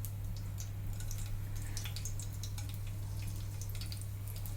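Whole spices crackling and popping in hot ghee in a kadhai: scattered small, irregular pops over a steady low hum.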